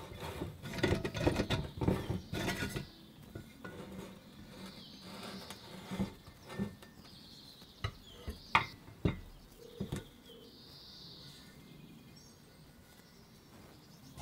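Rattling and clicking of an old hand-cranked glass-jar butter churn's rusty metal gear top being handled, then a few separate sharp knocks of metal and glass as the top is lifted off the jar and the jar is picked up.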